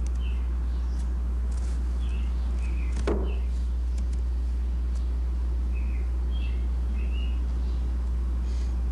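Small birds chirping in short calls now and then over a steady low hum, with a single knock about three seconds in.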